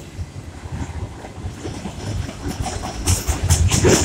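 Freight train of enclosed autorack cars rolling past close by, its wheels rumbling and clacking over the rail joints. The sound grows louder, with a quick run of sharp clacks starting about three seconds in.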